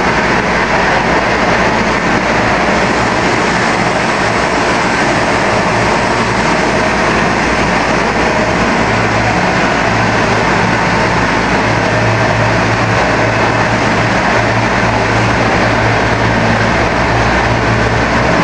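Corn flakes production line machinery running: a loud, steady mechanical din with a low hum underneath, from the rotating drum, motors and mesh conveyors.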